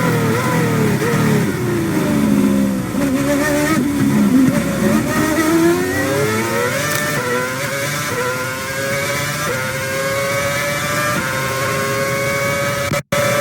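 2011 Formula 1 car's 2.4-litre V8 engine at very high revs. The pitch falls in steps through downshifts over the first few seconds, runs low briefly, then climbs steadily through successive upshifts. The sound cuts out for an instant near the end.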